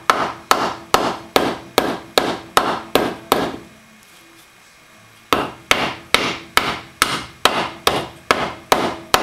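Rubber mallet tapping a seized valve in a Honda 4.5 HP engine's block to work it loose after penetrating spray. The taps come in a steady run of about two and a half a second, stop for about two seconds near the middle, then start again.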